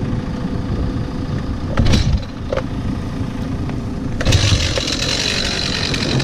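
Farm machine's diesel engine running steadily, with a few sharp knocks; about four seconds in, a hiss and a high steady whine join as it works harder.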